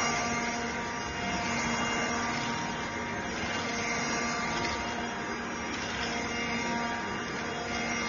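ELUXGO EC19C cordless stick vacuum cleaner running steadily: a constant motor whine of several even tones over the rush of airflow.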